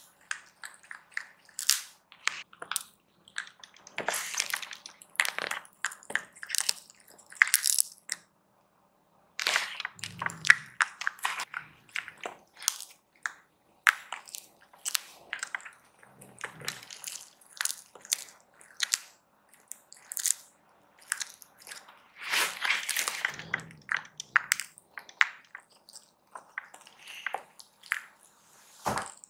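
A Bengal cat crunching hard dried cod: many short, crisp bites and crunches in quick clusters, with a pause of about a second around eight seconds in.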